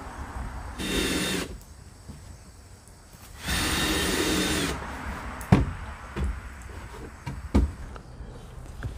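Power drill driving screws through a plywood board into the plastic playhouse wall, in two short runs of the motor: about a second in, and a longer one around four seconds in. A few sharp knocks follow.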